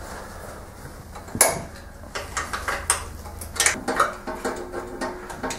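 Metal clicks and clinks of a wrench undoing the half-inch SAE nuts that hold the engine to the twin rails of a Scott Bonnar model 45 mower: one sharp click about a second and a half in, then a run of lighter irregular clicks and rattles.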